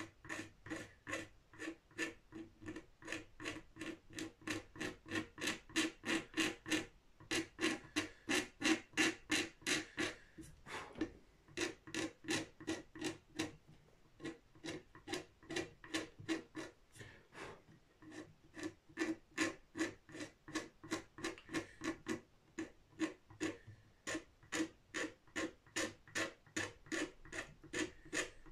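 Razor blade scraping a built-up super glue finish on a guitar headstock, in quick regular strokes about three a second with a couple of short pauses. A harsh scrape that "goes right through you like nails on a chalkboard".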